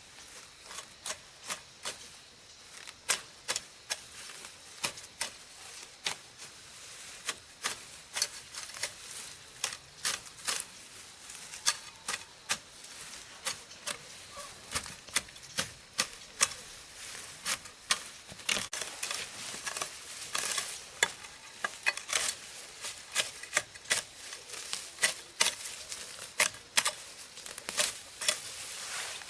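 A long, irregular run of sharp, light taps or knocks, one to three a second, growing busier past the middle.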